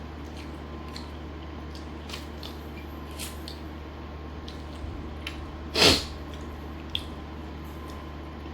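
Person eating: soft chewing and small mouth clicks over a steady low hum, with one loud, short, sharp sound about six seconds in and a smaller click a second later.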